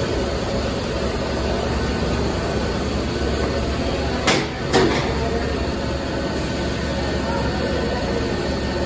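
Steady machine noise of a PVC pipe extrusion line running, a constant din with a low hum. Two sharp knocks come close together about halfway through.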